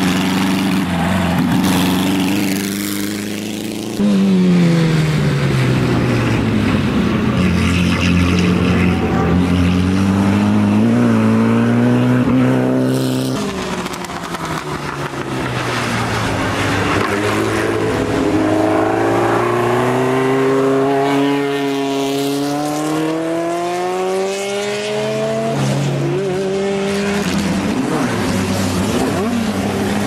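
Historic open-wheel racing car engines accelerating hard one after another. The pitch climbs and drops back again and again as the cars change up through the gears.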